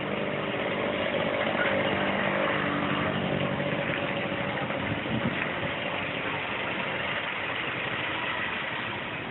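A motor vehicle's engine idling steadily, over street background noise; the engine fades after about five seconds.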